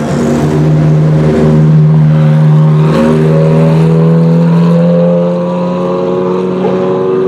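Ferrari 360 GTC race car's 3.6-litre V8 running at low, steady revs, its pitch creeping slowly up as the car pulls away at low speed, easing a little after about five seconds.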